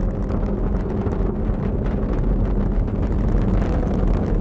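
Falcon 9 first stage's nine Merlin 1D engines heard from the ground during ascent under full thrust: a steady low rumble with crackling.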